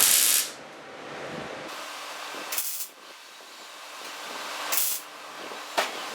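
Welder tacking a sheet-metal patch panel onto a truck body: four short sizzling bursts of welding hiss. The first and longest comes at the start, two more follow a couple of seconds apart, and the last is very brief near the end, over a steady quieter background noise.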